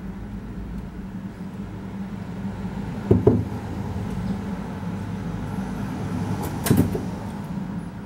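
Steady low mechanical hum, with two short knocks about three and a half seconds apart.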